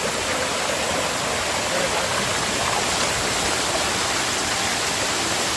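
Waterfall pouring down into a forest stream, a steady, even rushing of water.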